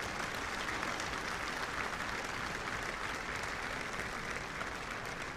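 Seated audience applauding steadily.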